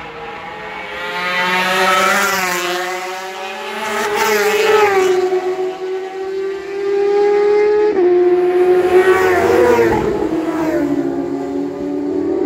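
Racing motorcycles passing one after another at speed, engines at high revs, the pitch swelling and then falling as each goes by. Sudden steps in engine pitch at gear changes about two-thirds of the way through.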